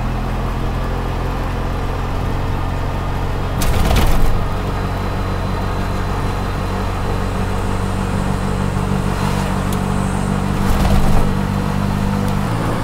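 Autorickshaw engine running steadily while under way, heard from inside the cab with road noise. There are two brief louder noisy swells, one about four seconds in and another a little before the end.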